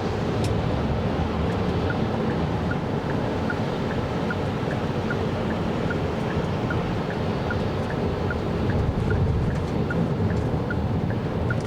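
Steady road and wind noise heard inside the cabin of a 2024 Kia Carnival Hybrid minivan driving in snow. A faint, regular tick runs through it about two and a half times a second, starting about a second and a half in.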